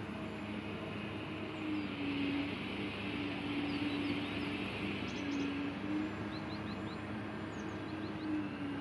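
Hydraulic pump of a 1:8 scale RC Caterpillar 390D model excavator running with a steady whine, its pitch dipping briefly now and then as the boom and bucket are worked. Birds chirp in short runs in the background.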